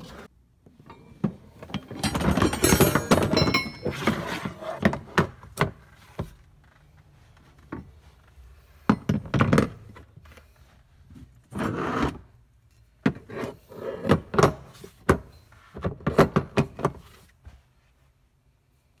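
A car's jack handle and tools being set back into their hard plastic storage tray in the trunk: clusters of clunks, clicks and scrapes, metal knocking on plastic, with pauses between.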